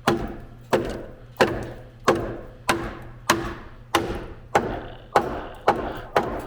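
Steady, evenly paced hammer blows on a rusted steel truck frame, about one and a half a second, each with a short ring. The blows are knocking through rotten metal and packed mud, and the rust damage keeps growing as the frame is struck.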